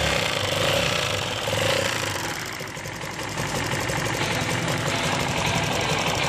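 Kasinski CRZ 150 SM single-cylinder motorcycle engine running at a steady idle with a fast, even mechanical ticking in its sound.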